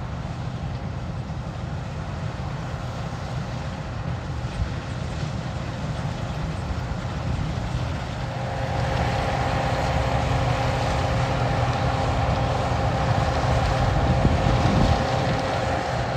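Diesel engine of harvest machinery running steadily. About halfway through, a steady whine joins in and the sound grows a little louder.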